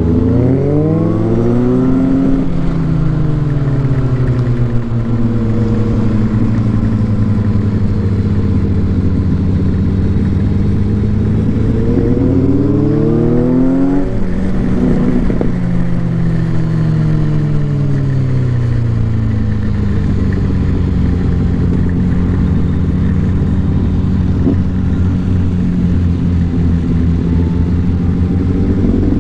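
Motorcycle engine revving up and down as the bike rides: the pitch climbs over the first couple of seconds, eases off, climbs again to a peak about halfway through, then falls away and holds steady before rising again near the end. A steady hiss of wind and tyres on the wet road runs underneath.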